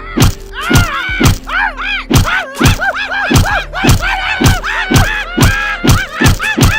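A rapid, regular series of thumps, a little over two a second, each carrying a short pitched tone that swoops up and then down.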